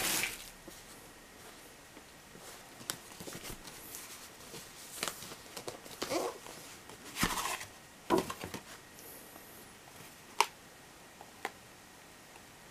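Hands handling a cardboard watch box: scattered rustles and scrapes of the box and its packaging, then two sharp clicks near the end as the hinged presentation box is opened.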